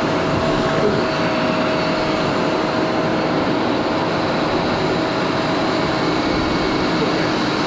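Wet/dry vacuum's electric motor running steadily, a loud rushing of air over a constant motor whine that spins up just before and cuts off abruptly at the end, sucking sewage out of a blocked drain line.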